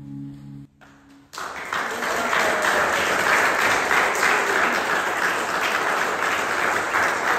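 A final chord on a hollow-body electric guitar rings and fades out, then after a brief hush an audience breaks into applause about a second in, which goes on steadily.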